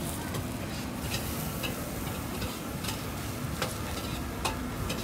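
Marinated pork skewers (moo ping) sizzling on a grill, with scattered light clicks as the bamboo skewers are handled and turned on the metal grate.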